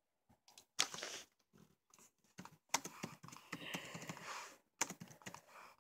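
Faint typing on a computer keyboard: short, irregular keystroke clicks with brief pauses between them.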